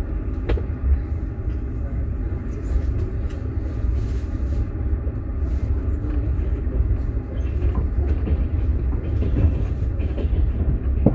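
Moving passenger train heard from inside a sleeper carriage: a steady low rumble of the running wheels and car body, with a few light clicks and knocks.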